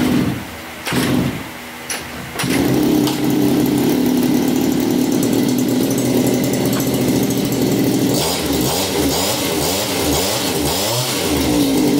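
Shindaiwa 230 brushcutter's small two-stroke engine pull-started with its rebuilt recoil starter: two short pulls, then it catches about two and a half seconds in and runs steadily. Near the end its pitch rises and falls several times in quick succession as the throttle is worked.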